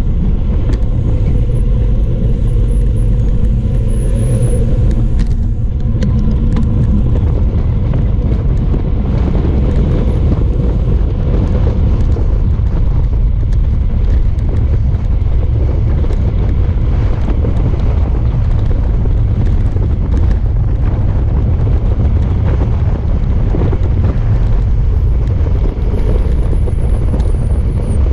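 Wind rushing over a GoPro's microphone on a fast road-bike descent: a loud, steady, low roar.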